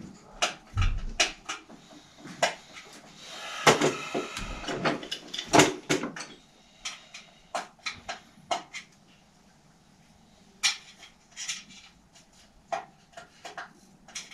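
Irregular sharp clicks and small metal taps of hand work on a Woom 2 children's bike freewheel hub clamped in a vise, with a louder cluster of clatter about four to six seconds in.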